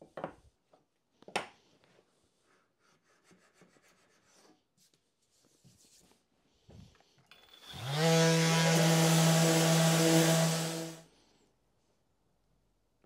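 Light scraping and rubbing on an oak board as a filled knot is trimmed, with a sharp click early on. About eight seconds in, the small electric motor of the knot repair kit's handheld heating tool spins up with a rush of air, runs steadily for about three seconds, and stops.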